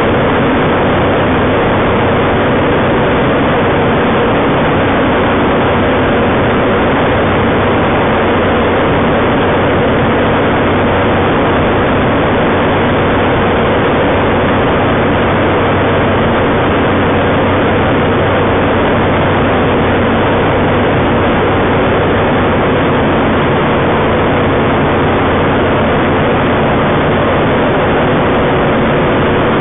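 Home-built Kitfox-type light aircraft's engine and propeller running steadily in flight, a constant loud drone heard from inside the cockpit.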